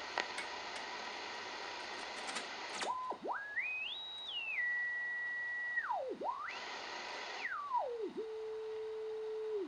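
An R-390A receiver's speaker giving a heterodyne beat whistle as the dial is tuned across its 100 kHz crystal-calibrator signal. Over steady receiver hiss with a few clicks, the whistle climbs in steps to a high pitch and holds, sweeps down through zero beat, rises again, then settles on a low steady note before sliding down at the end.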